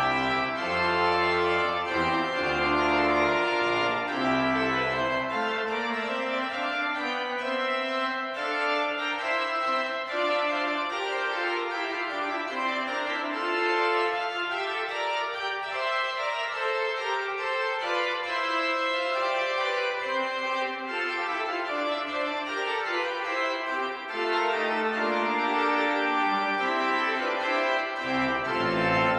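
Church pipe organ playing the closing postlude after the blessing: sustained full chords, with deep pedal bass notes at the start that drop out after about five seconds and return near the end.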